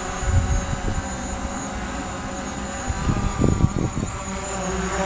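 A DJI Mavic Pro quadcopter hovering overhead, its propellers giving a steady, many-toned buzzing whine. Irregular low rumbles of wind on the microphone come through, strongest about three seconds in.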